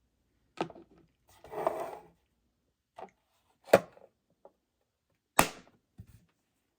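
Hard plastic objects being handled and set down on a hard surface: a short rustle and about five sharp knocks and clacks, the two loudest near the middle and near the end.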